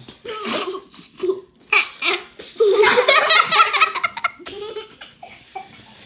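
Children laughing in bursts, the biggest and loudest fit of laughter coming a bit under three seconds in and lasting nearly two seconds.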